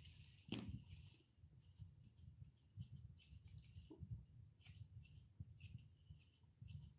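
Grooming scissors, the curved kind, snipping a toy poodle's ear fur: a run of faint, short, crisp cuts, two or three a second, with small gaps between runs.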